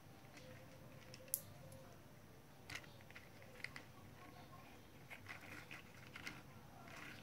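Faint clicks and taps of a plastic toy tricycle being handled, with one sharp click a little over a second in and scattered lighter clicks after it.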